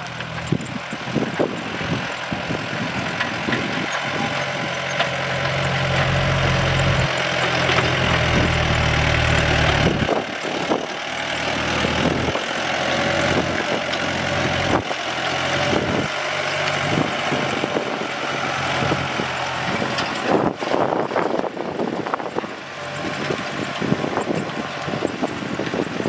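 Tractor diesel engine running steadily, heavier and deeper for several seconds in the first half, with frequent knocks and rattles over it.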